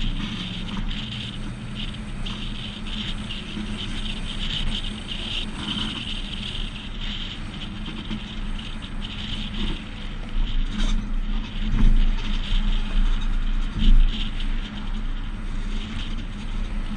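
Road and wind noise of a trailer towed at driving speed, with loose, irregular rattling from the trailer and hitch. It grows louder and rougher from about two-thirds in, as the rig speeds up onto the highway.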